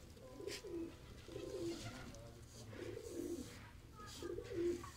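Pigeons cooing, a run of about four low, warbling coos roughly a second apart.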